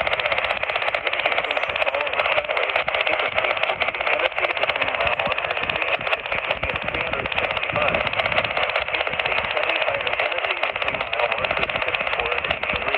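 Radio static: a steady hiss held in a narrow, telephone-like band of pitches, with no clear alert tones.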